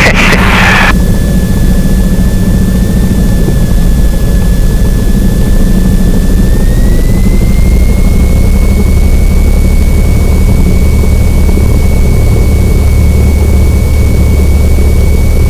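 Cessna 172N's four-cylinder Lycoming O-320 engine and propeller droning steadily, heard inside the cabin. A thin high whine runs over it and steps up in pitch about seven seconds in.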